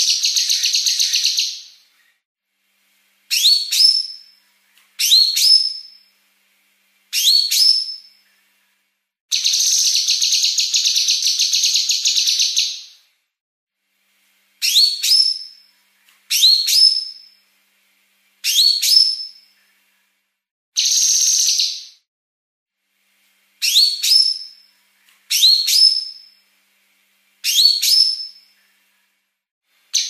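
Female blue-masked leafbird (cucak kinoi) singing fast and dense. Long rasping trills lasting one to four seconds alternate with about nine short, sharp whistled notes that sweep down and flick back up.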